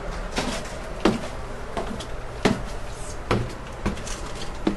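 Footsteps going down a narrow stairway inside a moving Amtrak Superliner car, about one footfall every three-quarters of a second, over the train's steady low hum.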